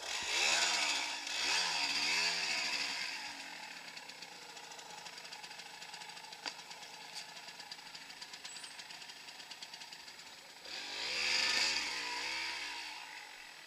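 Dirt bike engine revving up and down in short blips over the first few seconds, then ticking over more quietly, then revving again in a second burst near the end.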